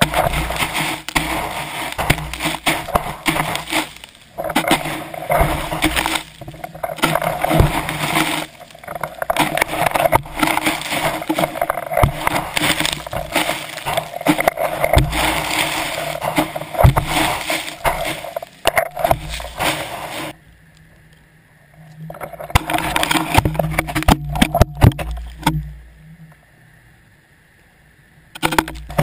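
GoPro camera in a towed dredge dragging over the seabed underwater: dense scraping and rushing with many knocks and bumps. It drops away twice for a second or two in the last third.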